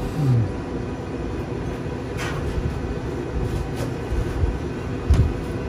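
Steady low rumble with a few knocks and thumps as cedar planks of smoked salmon are lifted off the racks of a pellet smoker. There is a short low scrape at the start and a thump near the end, the loudest sound.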